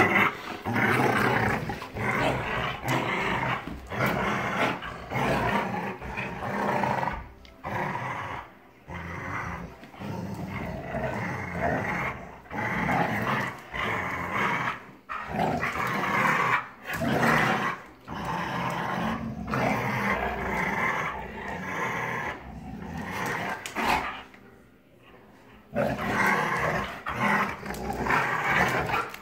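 Dogs growling in play while they tug a plastic ring toy between them. The growling comes in rough runs of a second or a few, with a couple of short lulls.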